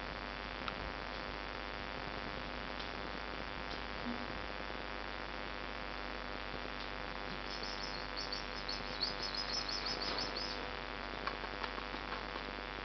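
Steady electrical hum and hiss with a few faint clicks. About halfway through comes a few seconds of rapid, high-pitched chirping.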